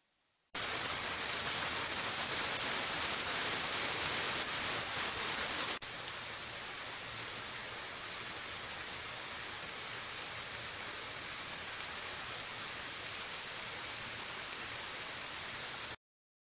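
A steady high hiss of noise that drops a little at a sudden step about six seconds in and cuts off abruptly near the end.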